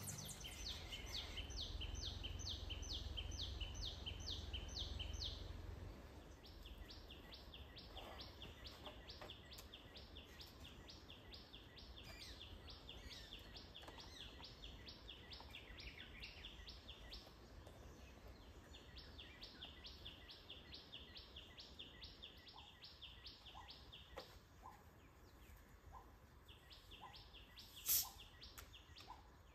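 Quiet outdoor ambience with rhythmic wildlife chirping, about four high chirps a second in runs lasting several seconds, over a low rumble that eases after about six seconds. A single sharp click near the end.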